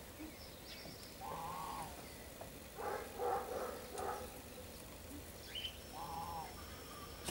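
Animal calls: a drawn-out call about a second in and again near the end, three louder calls in a row in the middle, and a few short high bird chirps.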